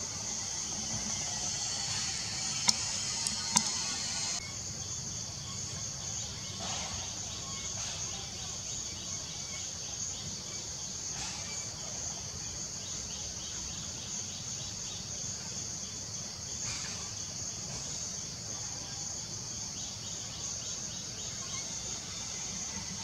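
Steady high-pitched chorus of insects, with a low rumble underneath and two sharp clicks about three seconds in.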